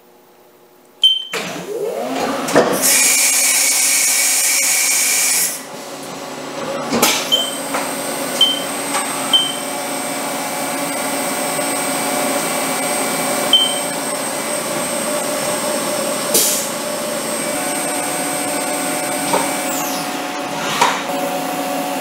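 Haas CNC mill spindle spinning up, a loud hiss for about three seconds, then the spindle running with a steady high whine as a small end mill recuts the clip pocket in the aluminum buckle, with a few short high chirps. The whine falls away near the end as the spindle spins down.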